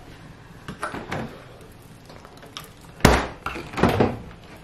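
Fridge door on a small fridge-freezer being pulled open by hand. There is a sharp clunk about three seconds in, then a softer knock and rattle as the door swings open, with a few light clicks before.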